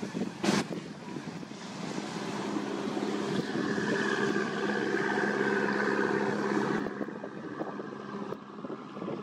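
A motor cruiser's inboard diesel engine passing close by: a steady hum that swells to its loudest midway and fades away near the end. A short, sharp knock about half a second in.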